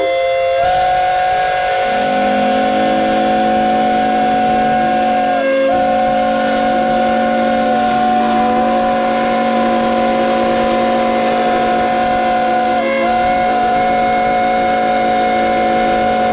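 Steam whistles blowing together in one long, steady chord of several notes. A lower note joins about two seconds in, and the upper notes dip briefly about five seconds in and again near thirteen seconds.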